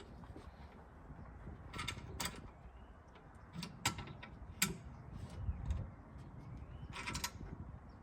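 Irregular metallic clicks and clunks of hand tools and metal fittings being worked while fuel filter housings and brackets are mounted, over a low steady background rumble.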